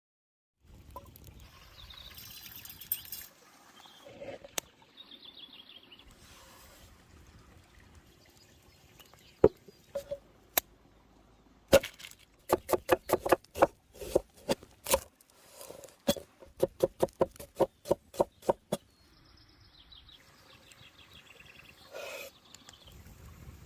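Chopping: scattered single sharp knocks, then a steady run of sharp knocks at about two to three a second for several seconds past the middle.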